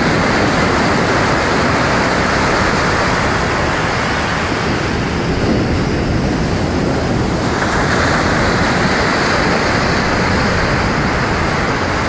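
Steady, loud rushing noise with no distinct events.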